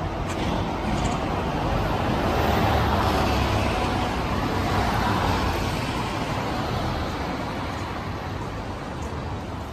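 Road traffic: a double-decker bus passing close by with cars on the road, its engine and tyre noise swelling to a peak a few seconds in and then slowly fading.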